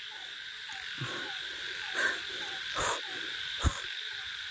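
Night chorus: a steady high insect drone with frogs giving a short call about twice a second. A couple of soft knocks come in the middle, the second a sharp click.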